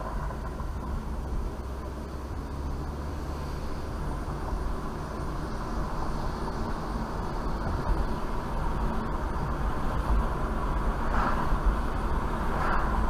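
Car driving along a road, heard from inside the cabin: steady low rumble of engine and tyres that slowly grows louder. Near the end an oncoming car passes with a brief swish.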